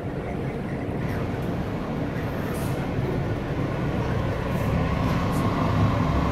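An R143 subway car pulling out of the station and gathering speed, heard from inside the car: its running noise grows steadily louder, with a few faint high clicks.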